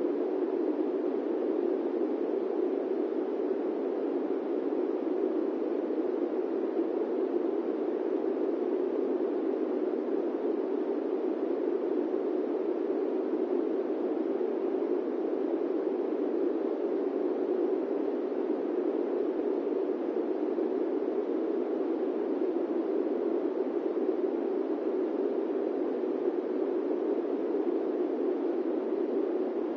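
Steady airplane-cabin white noise: an even, unchanging rush with no events in it, weighted toward a low-to-middle pitch, like the constant drone heard inside a cruising airliner's cabin.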